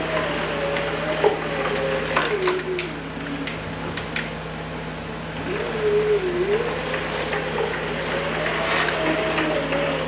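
A greenBull CNC gantry pushed by hand along its rack and back, its pinion and unpowered stepper motor turning with a whine that rises as it speeds up, holds, and falls as it slows. This happens twice, with a few clicks and knocks, over a steady low hum.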